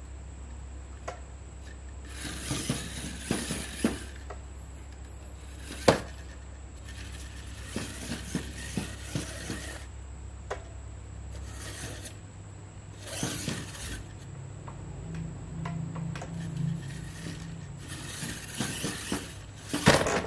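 3D-printed 4WD RC pickup truck driving on a hard tabletop: its motor and plastic geared drivetrain run in short bursts of whirring and clattering, with sharp clicks and knocks as the tyres and body hit the surface and tiles. The loudest knock comes about six seconds in, and a cluster of knocks near the end.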